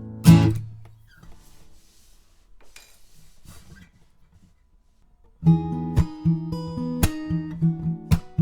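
Taylor 324e acoustic guitar (mahogany top, Tasmanian blackwood back and sides), picked up by a Blue Bluebird microphone. One chord is strummed sharply about a quarter second in and dies away within a second. After a pause of a few seconds, rhythmic chord strumming starts again near the end.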